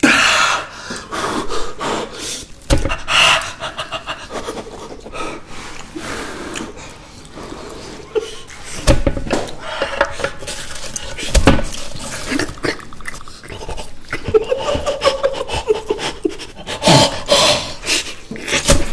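A man huffing and panting open-mouthed, as if cooling a too-hot bite, with short cries and a few sharp knocks. The heat is feigned: the steak he is biting into is cold.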